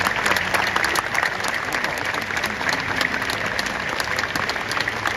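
Crowd applauding: many hands clapping at a steady strength.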